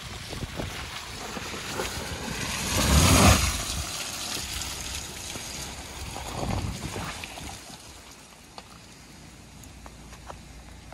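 Toyota RAV4 hybrid driving through a muddy puddle and past at low speed: tyres splashing through water and mud, loudest about three seconds in, with a second smaller surge a few seconds later before the tyre noise fades.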